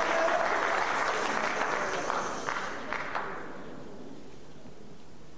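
Spectators applauding in a sports hall, the applause dying away over about three seconds, with a few last single claps before the hall goes quiet.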